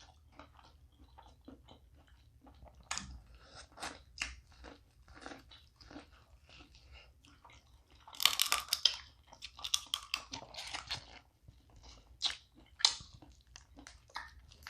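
Snow crab legs being cracked open and eaten: scattered sharp shell cracks and small chewing clicks, with two louder spells of crackling shell about eight and ten seconds in.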